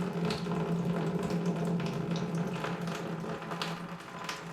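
Water running and hissing through the house's copper supply pipes as they drain after the main water valve has been shut off, over a steady low hum.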